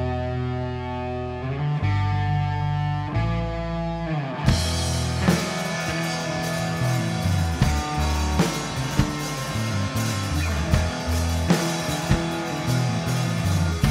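Electric guitar holding three long chords on its own, then, about four and a half seconds in, the drums and bass come in and the rock band plays on together.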